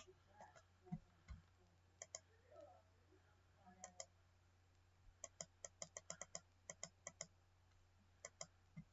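Faint clicking of a computer mouse and keyboard: a few scattered clicks, then a quick run of them about five seconds in and a few more near the end, over a low steady hum.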